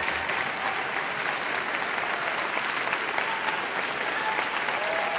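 A large audience applauding steadily, a dense patter of many hands clapping, with a few voices calling out over it.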